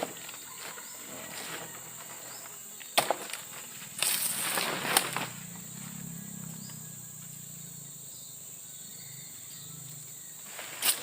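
Steady high-pitched insect chorus of crickets in tropical forest. Over it come a few sharp snaps, at the start, about three seconds in and about five seconds in, with a rustle of plants handled or pushed aside from about four to five seconds.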